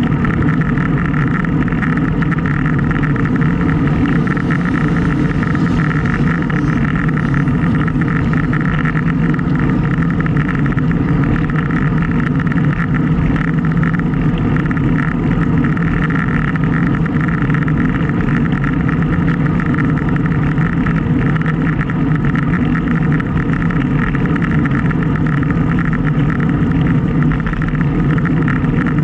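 Steady wind and road noise on a bike-mounted action camera's microphone while riding, an unbroken loud rush with a low rumble.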